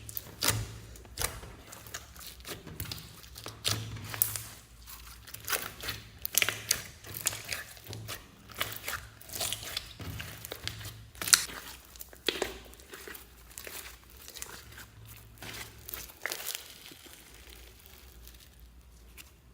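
Slime being squished and stretched by hand, giving a dense run of irregular sticky crackles and pops. The crackling thins out in the last few seconds.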